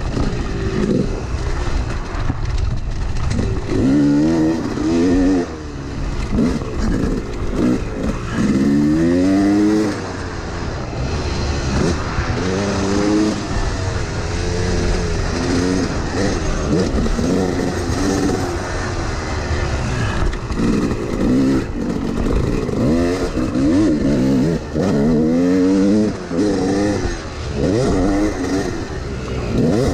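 Yamaha YZ250X two-stroke dirt bike engine revving hard while it rides a rough motocross track, its pitch climbing and dropping again and again as the throttle is worked and the gears are shifted.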